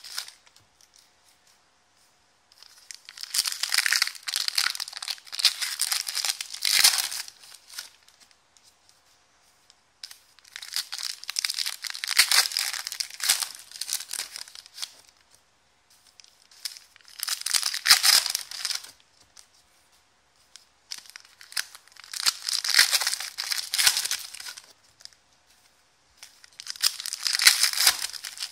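Trading card pack wrappers torn open and crinkled by hand. The sound comes in about five rustling bursts of a few seconds each, with short quiet gaps between them.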